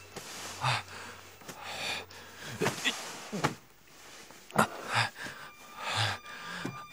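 A man coughing and gasping in several short, laboured fits, his breathing hoarse and strained, as of someone badly hurt.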